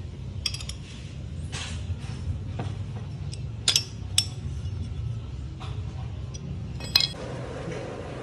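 Scattered sharp metallic clinks as an Allen key, bolts and aluminium rearset (footpeg) parts knock together during assembly, over a steady low hum. Near the end a plastic parts bag rustles.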